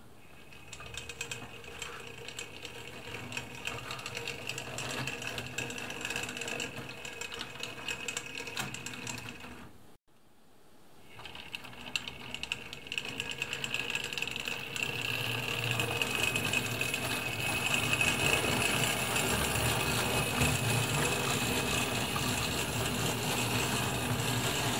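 DCC-fitted Hornby Dublo model locomotive running on three-rail tinplate track: an electric motor whirring, with a fine rapid clicking from the wheels and track. The sound cuts out about ten seconds in, then a train approaches and runs past, growing louder to a steady whir with a high whine.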